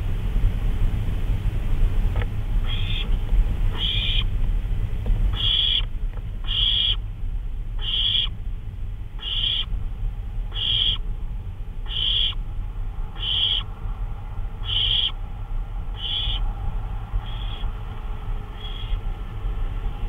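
Barn owl calling: a regular series of short calls, about one every second and a half, fading somewhat toward the end, over a steady low rumble.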